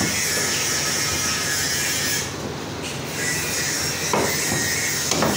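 Butcher's cleaver chopping mutton on a wooden block, with a knock about four seconds in and another near the end, over a steady background hiss.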